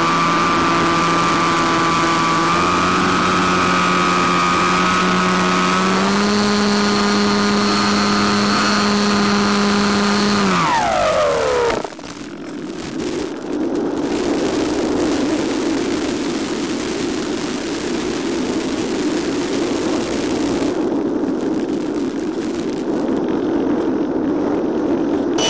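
Electric motor and propeller of an FPV model airplane whining steadily, stepping up in pitch twice, then winding down with a falling pitch about eleven seconds in as the motor is cut. After that comes a steady rush of air as the plane glides with the motor off.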